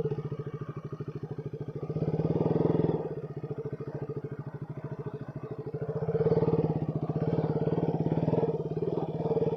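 KTM RC 200's single-cylinder engine running at low revs with a steady pulse as the bike is ridden slowly, the throttle opened a little about two seconds in and again for a couple of seconds from about six seconds in.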